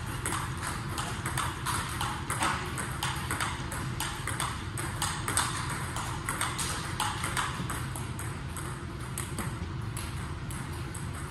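Table tennis ball clicking back and forth off paddles and table in a fast, even rally of a few hits a second, thinning out near the end.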